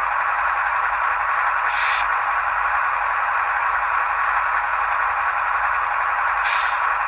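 Sound decoder (ESU LokSound 5) in an HO scale GE ES44AC model diesel playing through its small speakers: a steady hiss, with two short, sharper blasts of air about two seconds in and near the end, the spitter valve purging.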